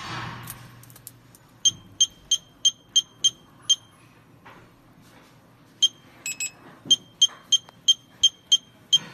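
Keypad of a Douwin FA822SD electronic fingerprint door lock beeping with each key press as a password is entered: two runs of short high beeps, about three a second, with a quick double beep in the pause between them.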